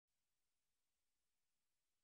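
Near silence: only a faint, even electronic hiss.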